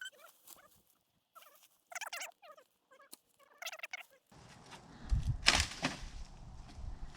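Bird calling in several short bursts of rapid, warbling notes, then close rustling and thumping noise about halfway through that is louder than the calls.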